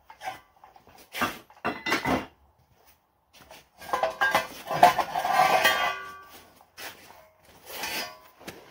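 Steel parts clanking and scraping on the bed of a hydraulic shop press as the pressing block and the flattened steel bracket are lifted out: a few short knocks, then a longer, ringing metal clatter midway, and more knocks near the end.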